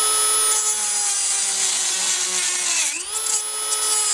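Dremel rotary tool with a cutoff wheel grinding through a threaded steel bolt, a steady high whine with a grinding hiss. It starts abruptly, and about three seconds in the pitch dips briefly as the wheel bogs under load, then climbs back.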